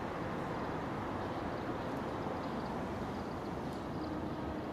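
Chikuho Electric Railway 2000-series electric car approaching from a distance: a steady, even running rumble, with a faint tone appearing near the end.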